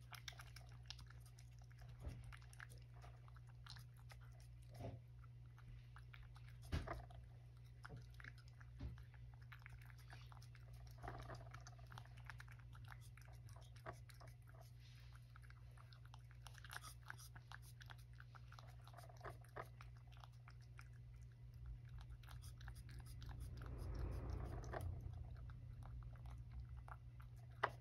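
A cat eating from a ceramic dish: soft, irregular chewing and licking clicks, over a steady low hum.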